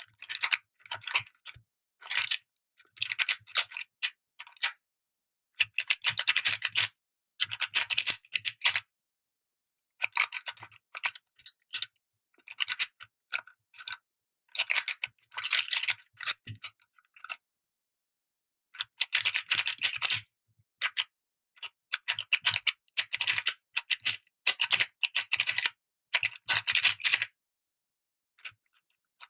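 Plastic YJ MGC 4x4 speed cube being turned quickly by hand: runs of rapid clicking and scraping as its layers turn, each run lasting a second or two, with short pauses between.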